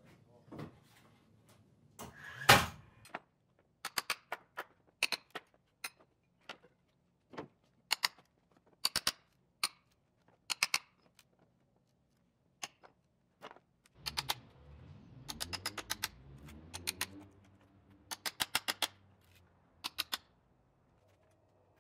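Sharp wooden knocks and clacks of pallet boards being struck and broken apart, single and in quick runs, with one loud crack about two seconds in. A low rumble with a wavering pitch comes in near the middle.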